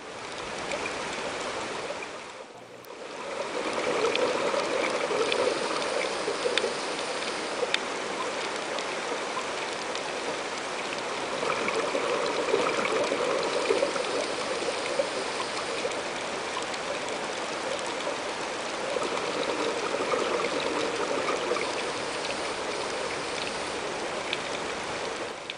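Underwater rush and gurgle of scuba divers' exhaled bubbles from their regulators, swelling and fading in long waves every several seconds, with a few faint clicks.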